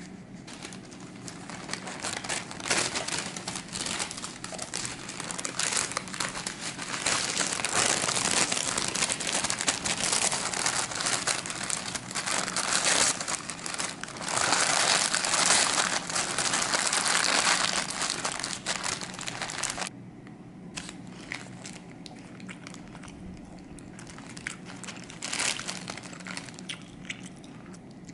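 A sheet of parchment paper crinkling and rustling as it is folded and wrapped around a toasted sandwich. It is loudest from about a quarter of the way in to about two-thirds through, then drops to quieter rustles and light taps.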